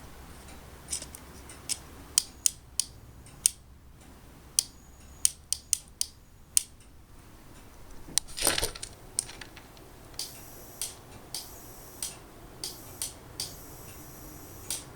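Sharp mechanical clicks from a hand key or switch being worked to key a homemade tube oscillator transmitter. They come irregularly at first, with one louder crunchy click about halfway, then settle into an even run of about two clicks every second and a bit, with a faint high whine between them in the last few seconds.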